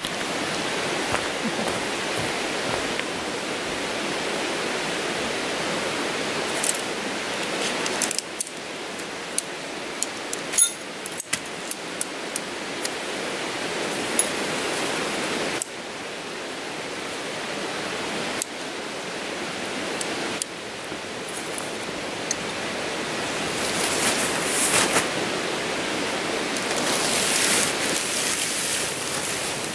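Steady rushing background noise. Scattered light clicks and clinks from the Tarptent Moment DW's tent pole and stakes being handled come mostly in the first half. Louder rustling of the tent's rainfly fabric follows near the end as it is lifted and shaken out.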